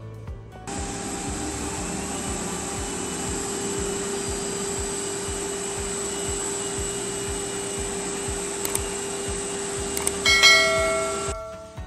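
Cordless drill turning a core bit through a quartz countertop, with a dust-extraction vacuum running at the bit. Together they make a steady, loud machine noise with a constant hum that starts about a second in and cuts off shortly before the end. A ringing chime sounds near the end, over background music with a steady beat.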